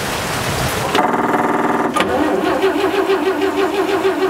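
Gasoline straight-six engine of a 1940s Chevrolet truck being cranked over by its starter in a steady, fast rhythm without firing. A sharp click comes about two seconds in. The owners find no spark and suspect a bad ignition coil.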